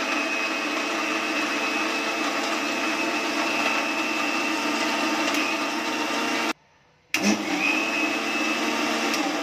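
Electric mixer-grinder motor running steadily with a high whine while it crushes ice cubes in the jar. It cuts off about six and a half seconds in, and after a short gap starts again, blending the milkshake.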